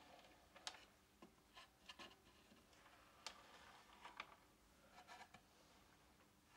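Faint scraping and light knocks of a plywood board being slid and turned by hand on a wooden workbench, with a copper boiler sitting on it; several short scrapes are scattered through the quiet.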